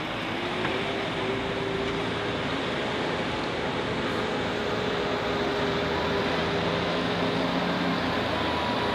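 Turbo-diesel engine of a light super stock pulling tractor idling, standing still after its pull: a steady engine rumble with a faint steady whine above it.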